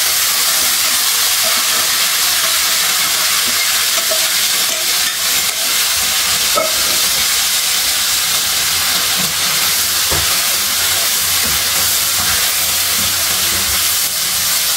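Vegetables frying in hot oil in a wok, a steady loud sizzle, with a few light knocks and scrapes of a spatula stirring them.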